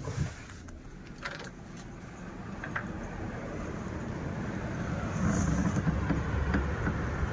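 Snowstorm wind blowing and buffeting the microphone, a hissing rush with heavy low rumble that builds about halfway through into a strong gust.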